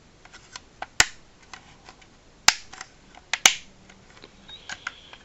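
Jazwares Micro Galaxy Squadron Inquisitor Transport Scythe toy ship, its hard plastic parts clicking as they are moved and set by hand: sharp clicks about a second in, midway, and a quick pair a little later, with lighter ticks between.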